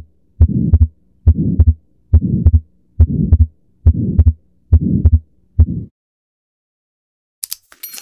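Recorded heart sounds of an atrial septal defect, heard through a stethoscope: a regular beat a little over one per second, each beat a pair of heart sounds with a murmur filling the gap between them. The beats stop about six seconds in, and a few short clicks and the start of a chime follow near the end.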